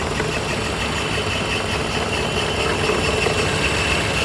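2005 Scion xB's 1.5-litre four-cylinder engine idling roughly with a misfire, shaking and running unevenly with a sporadic "puh puh puh". The misfire comes from a failing ignition coil pack on cylinder 2.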